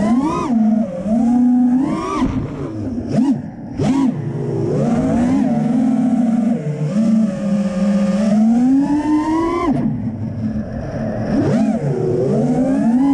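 Brushless motors and propellers of a 4S FPV freestyle quadcopter whining, the pitch sweeping up and down with throttle. The pitch falls sharply about ten seconds in as the throttle is chopped, then climbs again.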